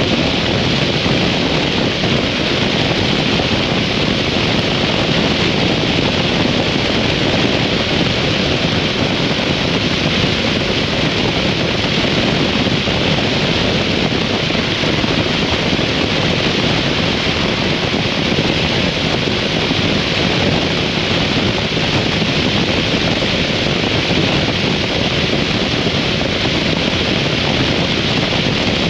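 Steady wind rush buffeting the microphone of a 2003 Harley-Davidson V-Rod motorcycle under way, with engine and road noise underneath. It holds at an even level throughout, with no rise or fall in speed.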